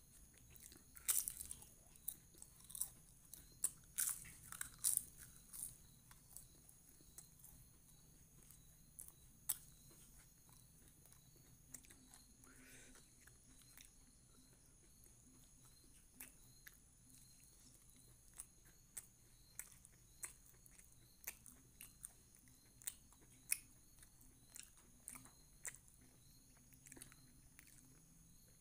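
Close-miked eating: crunching bites of crisp papad and chewing, with sharp crunches thickest in the first six seconds, then sparser mouth clicks and smacks.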